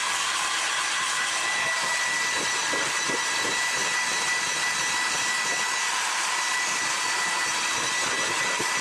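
Handheld electric dust-cleaning tool running at full speed inside a computer case: a steady rush of air over a high motor whine.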